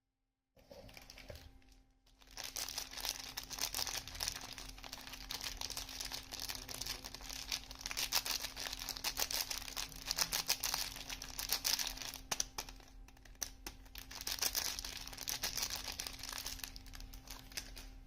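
Soap packaging being unwrapped by hand: dense crinkling of the wrapper with some tearing, starting about half a second in and growing busy about two seconds in.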